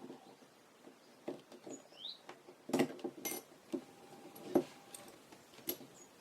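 Small parts of a Pentax-M 28mm f/2.8 lens being handled and fitted during reassembly: a run of light clicks, taps and knocks, the loudest about three and four and a half seconds in. A couple of short rising chirps sound high above them.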